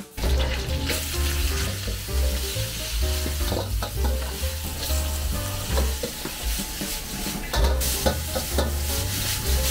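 Cabbage and bean sprouts sizzling as they are stir-fried in a wok over a gas burner. A metal ladle scrapes and clanks against the wok, with a cluster of clanks about four seconds in and another near eight seconds.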